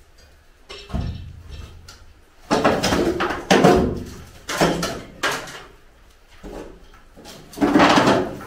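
Timber formwork being knocked and pried loose from under a cured concrete slab with a long bar: a series of about seven wooden bangs and clatters, the loudest near the end.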